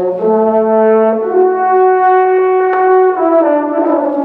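Wind ensemble playing a slow passage of sustained, held chords, with brass to the fore. The chord moves to a new one about a second in and again around three seconds in.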